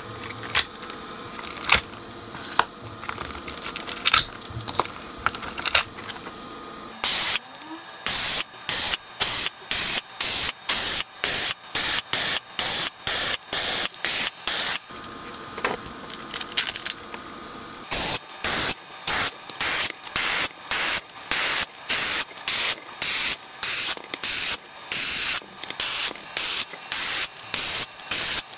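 Vacuum desoldering gun sucking solder off circuit-board joints: a long run of short, even bursts of suction noise, about one and a half a second, starting about a quarter of the way in, with a brief pause a little past the middle. Before that, a few light clicks and taps of handling.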